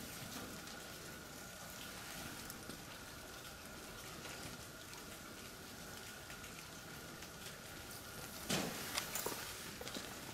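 Light rain pattering steadily on paving and roofs, with a faint steady high tone and a few louder knocks near the end.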